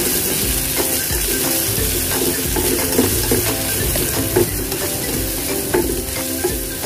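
Chopped onions and garlic sizzling in hot oil in a nonstick frying pan, stirred with a spatula that scrapes and taps the pan now and then. This is the sauté of the aromatics.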